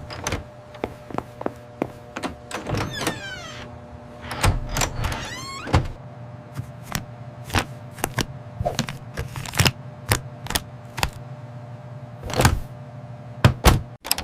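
A series of short knocks and thunks at uneven spacing over a faint steady hum, with two brief squeaky sounds about three and five seconds in.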